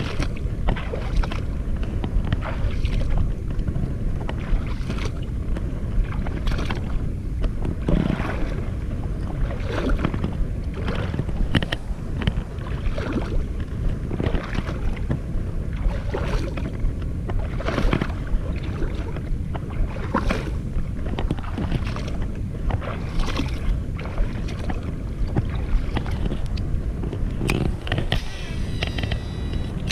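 Small boat under way: a steady low motor-and-wind rumble, with frequent short slaps as the hull meets the water.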